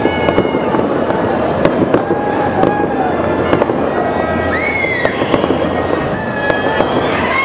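Fireworks going off: a dense, continuous crackle of many small pops, with several high whistling tones held or gliding up and down over it.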